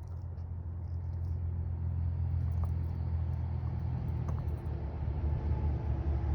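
Car running: a steady low rumble with a hiss above it, growing louder over the first two seconds and then holding steady.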